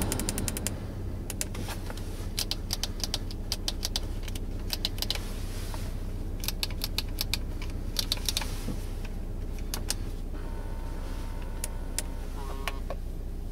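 Car keys jangling on their ring and clicking against the dashboard of an Audi A3, with button clicks, over a steady low hum in the cabin. Faint electronic tones sound near the end.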